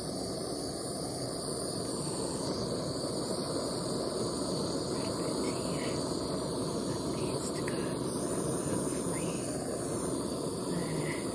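Gas jeweller's torch burning with a steady rushing hiss while heating gold foil onto silver for keum boo.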